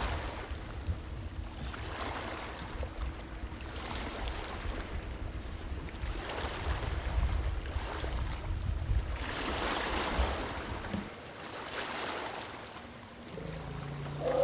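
Water sloshing and splashing as African elephants bathe in a waterhole, with wind rumbling on the microphone; the splashing swells and fades every second or two. A low pitched call starts just before the end.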